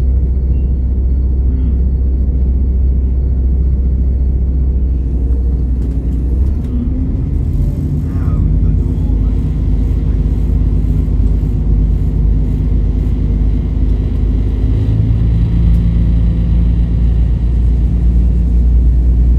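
Class 172 Turbostar's underfloor diesel engine and ZF transmission, heard from inside the carriage: a steady rumble while the train stands at the platform, then revving up about seven seconds in as the train pulls away. The engine pitch rises again about two-thirds of the way through.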